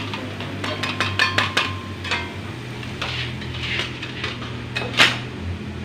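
Metal slotted skimmer clinking and scraping against a steel wok as fried vegetable fritters are lifted out of the hot oil: a quick run of clinks in the first second and a half, then one sharper clink about five seconds in, over a steady low hum.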